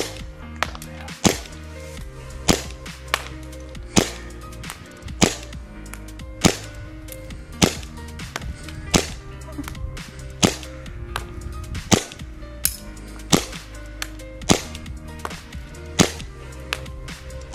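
WE 1911 gas blowback airsoft pistol firing single shots on semi-automatic, about one every second or so, each a sharp crack as the gas fires the BB and cycles the slide. Background music plays underneath.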